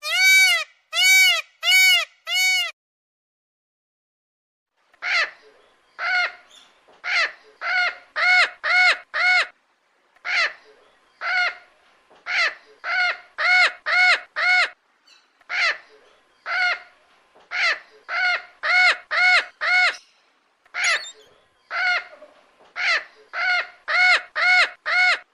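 Indian peafowl calling: a long series of loud, short notes, each rising and falling in pitch. Four come quickly, then after a pause of about two seconds the notes go on in runs of one to four.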